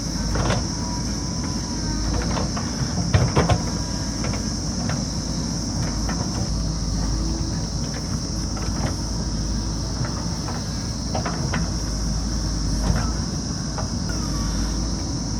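JCB backhoe loader's diesel engine running steadily, with scattered knocks and clanks from the machine working earth and rock, loudest about three seconds in, over a steady high insect drone.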